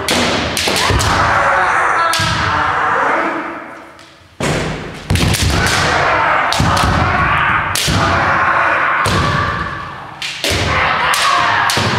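Kendo sparring: bamboo shinai cracking against armour and stamping feet thumping on a wooden floor, over long drawn-out kiai shouts from several fencers. There is a brief lull about four seconds in before the shouting and strikes pick up again.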